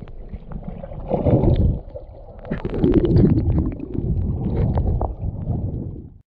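Muffled underwater rumbling and gurgling of water moving against a submerged camera, with scattered sharp clicks and swells about a second in and again around three seconds. It cuts off suddenly near the end.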